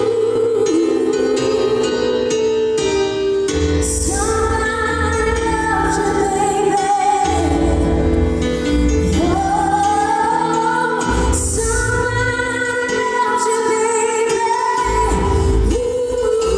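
Live band music with a singer holding long, sliding notes over a steady instrumental backing. Low bass notes come in a few seconds in.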